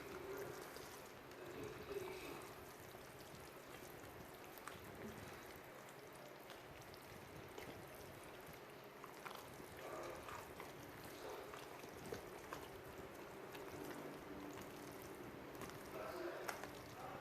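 Chicken stock pouring from a carton into a bowl of cornbread dressing mix: a faint, steady trickle of liquid with a few small ticks.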